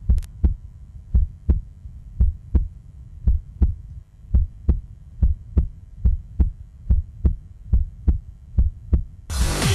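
Heartbeat sound effect: low, regular thumps repeating two to three times a second. Electronic dance music comes in loudly near the end.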